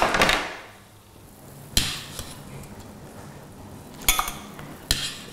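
A metal baking tray set down on a wooden board with a sharp clatter and a short ring at the start, then a single knock about two seconds in. Near the end a metal ladle clinks against a steel pot, twice.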